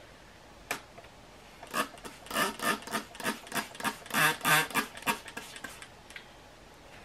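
Quick rubbing or scraping strokes by hand, about three a second for some three and a half seconds, after a single sharp click about a second in.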